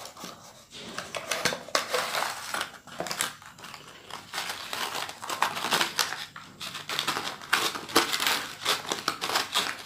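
Packaging being handled: a black plastic tray slid out of a cardboard box and a braided charging cable pulled free of it, a run of irregular crinkles, scrapes and clicks.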